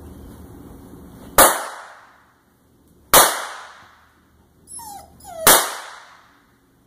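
Three sharp starter-pistol shots, about two seconds apart, each ringing off briefly. Just before the third, a puppy gives a short high falling cry.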